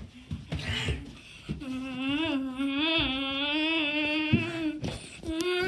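A child's voice holding one long, wavering note for about three seconds, then starting a second, higher note near the end, with a few knocks from the handheld phone and footsteps before it.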